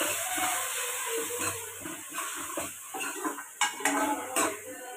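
A metal spoon stirring and scraping a potato, onion and curd mixture in a metal kadhai over the gas, with a light sizzle. About three and a half seconds in, the spoon clinks sharply against the pan a few times.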